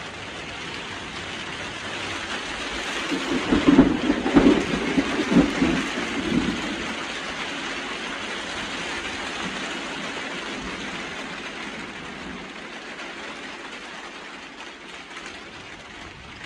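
Steady heavy rain, with a roll of thunder about three seconds in that rumbles in several peaks for a few seconds and then dies back into the rain.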